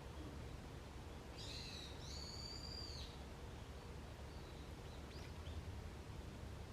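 A wild bird calling in woodland: one clear call about a second and a half in, lasting about a second and a half, then a few faint short notes near the end, over a steady low background rumble.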